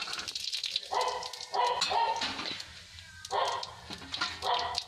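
A dog barking four times, in two pairs, louder than everything else. Underneath, cumin seeds crackle faintly in hot oil in a kadhai.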